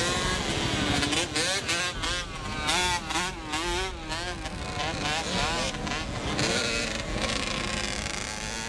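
Motocross motorcycle engines revving on a dirt track, their pitch rising and falling over and over as the riders work the throttle through the jumps and turns.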